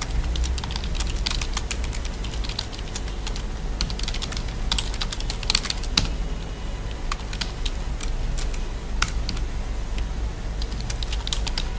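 Typing on a computer keyboard: a run of irregular keystroke clicks, some louder than others, over a low steady hum.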